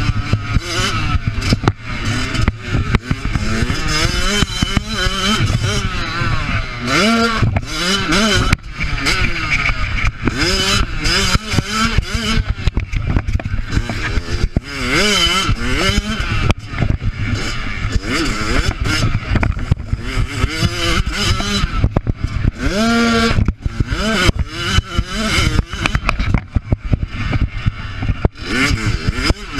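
Motocross bike engine heard from the rider's on-board camera, revving hard and backing off again and again as the bike rides a dirt track, the pitch climbing and dropping many times in quick succession.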